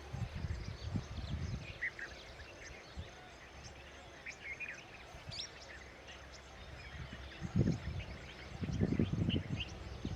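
Birds chirping in short, scattered notes, with bursts of low rumble early on and again in the last few seconds.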